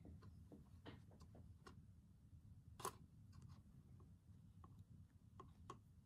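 Near silence with faint scattered clicks and taps as hands work small fabric pieces and scissors on a tabletop. One sharper click comes about three seconds in.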